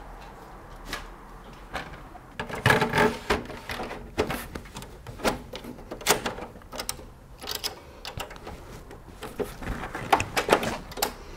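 Irregular metallic clicks, knocks and rattles from an SGI Octane XIO board module being handled and pushed into the workstation, with the busiest clatter about two and a half seconds in.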